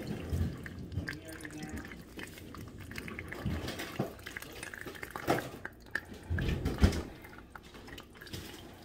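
Braising juices poured from a metal pan through a mesh sieve into a plastic bowl, trickling and dripping as the liquid is strained for gravy. A few knocks break in along the way.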